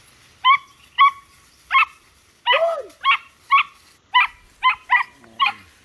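Hunting dog giving a run of short, high yelps, about ten in five seconds, with one longer yelp near the middle.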